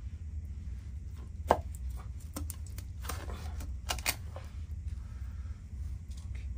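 Kitchen knife chopping through a fish's tail on a wooden cutting board: a few sharp knocks of the blade on the board, the loudest about one and a half seconds in, with more between three and four seconds in.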